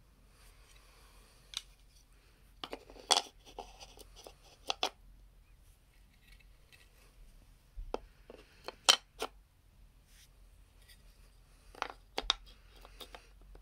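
Jigsaw puzzle pieces being handled and pressed into a wooden frame-tray puzzle: sharp clicks and taps in a few quick clusters, with faint rustling between.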